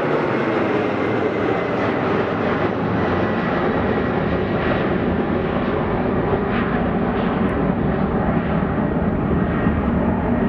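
Airliner engines running loud and steady, a dense rushing noise whose higher tones slowly fade.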